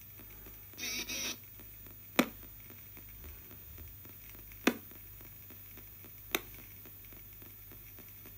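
Spirit box radio sweeping the AM band in reverse: steady faint static and hum. A half-second fragment of station sound comes through about a second in, and three sharp clicks follow later.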